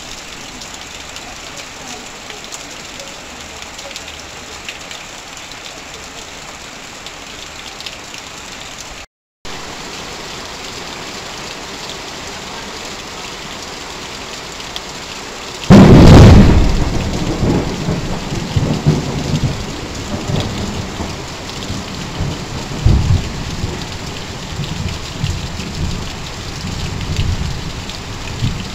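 Heavy rain falling on corrugated metal sheeting and streaming off a roof edge, a steady hiss. About halfway through a sudden loud thunderclap breaks in, followed by rolling thunder rumbles with another peak a few seconds later.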